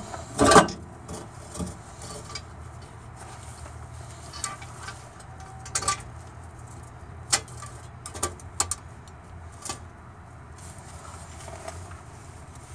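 Scattered metallic clinks and taps as a muffler, its gasket and the mounting bolts are handled and fitted onto the exhaust pipe, with the sharpest clink about half a second in. A steady low hum sits underneath.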